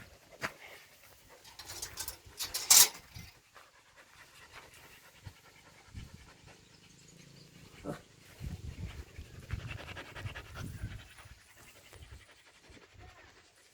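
Puppy panting in quick, rhythmic breaths, with a short sharp noise about three seconds in.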